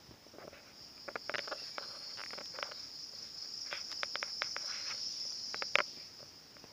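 Steady high-pitched insect drone, like crickets, with a scatter of short sharp clicks and chirps between about one and six seconds in, the loudest near the end.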